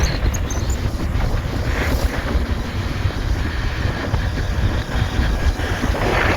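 Heavy wind buffeting on a hand-held phone microphone on a moving motorcycle, a steady rushing noise strongest in the low end.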